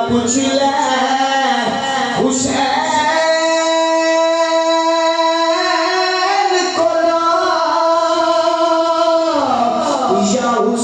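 Devotional singing: a voice draws out long notes, holding one for several seconds before gliding down in pitch near the end.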